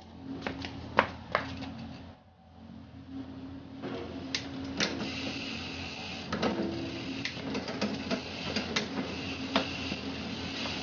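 Mountain bike's rear wheel spun by hand-turning the cranks: the freehub ratchet ticks rapidly and the chain runs over the cassette. A few sharp knocks come about a second in as the bike is handled.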